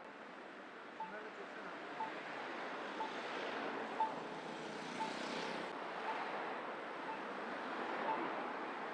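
Steady street traffic noise, with a short beep repeating about once a second.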